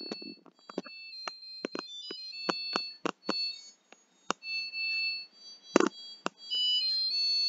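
Samsung WaterWall dishwasher playing its electronic end-of-cycle song, a tune of high beeping notes that step from pitch to pitch, with scattered sharp clicks through it. The song signals that the wash has finished normally, with no 7E error.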